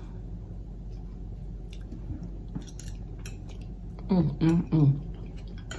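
Metal fork clicking lightly against a plate while eating. About four seconds in, three short voiced sounds from the eater, mouth full.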